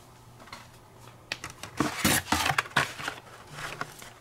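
Carded Hot Wheels cars in plastic blister packs being pulled from a cardboard shipping case and handled. A cluster of crinkly clicks and rattles starts about a second and a half in and eases off after about three seconds.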